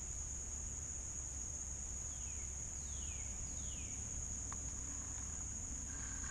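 A steady, high-pitched drone of insects in the riverside trees, with a bird's short downward-sliding calls, mostly in pairs, a few times over it.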